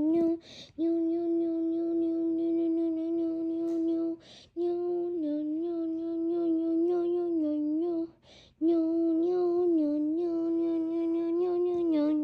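A person's voice humming or droning one long, steady note, held about three times in a row for several seconds each, with a quick breath between notes and a slight dip in pitch at the end of each.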